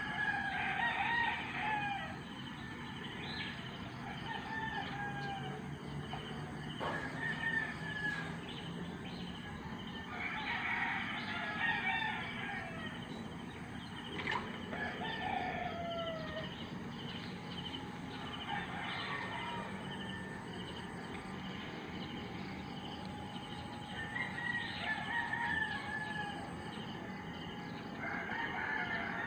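Roosters crowing again and again, a long call every few seconds, with a steady low background.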